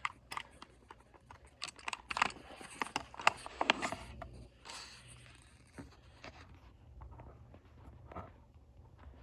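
Hands working the plastic case of a welding helmet's auto-darkening filter: a busy run of sharp clicks, scrapes and rattles in the first four seconds, thinning to occasional small clicks after.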